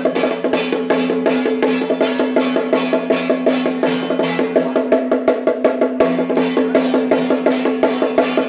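Temple procession percussion music: fast, even drum strokes at about five a second over a steady held tone.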